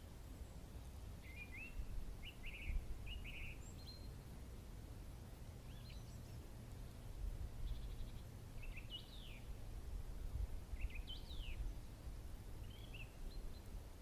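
Small songbirds giving short chirping calls, a few notes at a time every second or two, over a low steady rumble.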